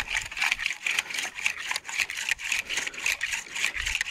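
Close, dense crackling and rustling from dry soil and grass being handled while a dug target is searched for, many small irregular scrapes and clicks a second.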